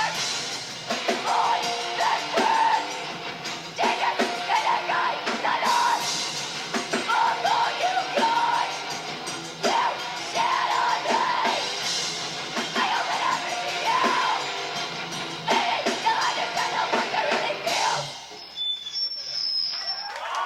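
Live heavy rock band playing loudly, with drums and yelled vocals. The music cuts off abruptly near the end, leaving a faint high tone.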